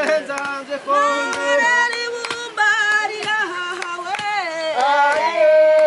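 Music: a song in Kinyarwanda, with a voice singing a flowing melody over a steady percussion beat.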